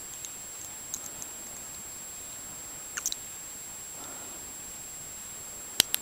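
Sparse, faint metallic clicks of a pick and tension wrench working the pins of a small 7-pin tubular brass padlock, with one sharp, louder click near the end as the plug turns and the lock opens.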